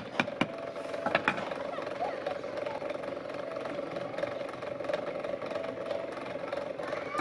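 A wooden rammer knocks moulding sand into a casting flask a few sharp times in the first second or so. A steady engine-like hum with a held tone runs underneath.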